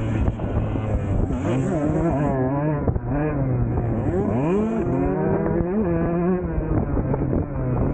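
Husqvarna TC 125 two-stroke motocross engine revving hard under riding. Its pitch climbs and drops again and again as the throttle is worked through the turns and jumps.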